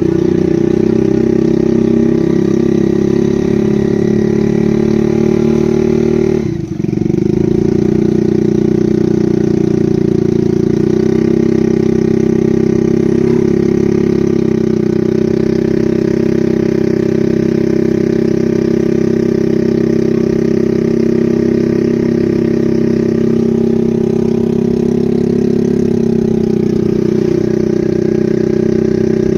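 A motor engine running steadily at a constant speed, with a brief drop in level about six and a half seconds in.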